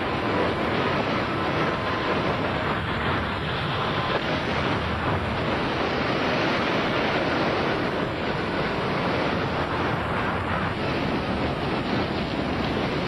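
Steady, loud rushing of strong storm wind near a large tornado, with no let-up or change in level.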